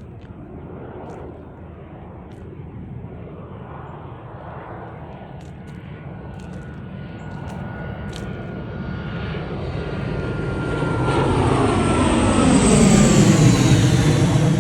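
An airplane flying low overhead. Its engine drone grows steadily louder to a peak near the end, and its pitch falls as it passes.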